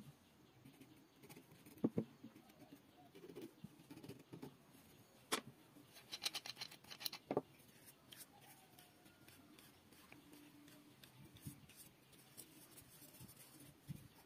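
Faint handling sounds of wood on a wooden workbench: a pencil scratching on a block and scattered light knocks and clicks as wooden pieces are picked up and set down, the sharpest knocks about two seconds in and between about five and seven seconds in.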